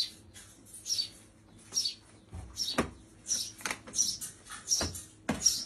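Sparrow chick begging for food: short, high chirps repeated about once or twice a second, coming faster in the second half. A few knocks are heard as plastic pet carriers are handled.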